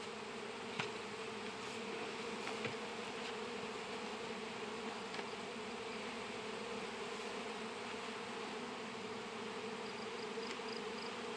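Honey bees buzzing around opened hives: a steady, continuous hum of many bees in flight. There are a couple of faint clicks early on.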